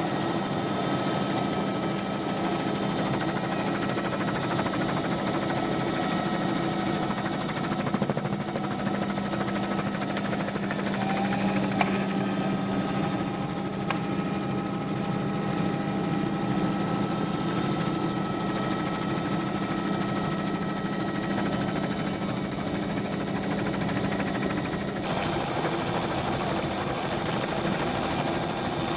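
Helicopter engine and rotor running steadily, heard from inside the cabin: a continuous drone with several held tones, its sound shifting slightly near the end.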